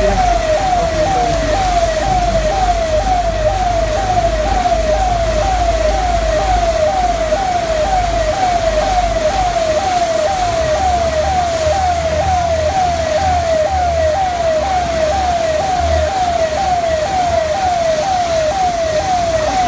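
Electronic siren of a civil defence emergency vehicle in a fast yelp, its pitch sweeping about twice a second without a break, over the low rumble of the vehicle.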